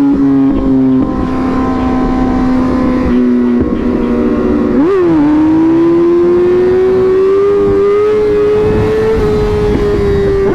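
Sport bike engine running at highway speed with wind rushing past. The engine note holds fairly steady, gives a quick throttle blip about halfway through, then climbs steadily as the bike accelerates and eases off slightly near the end.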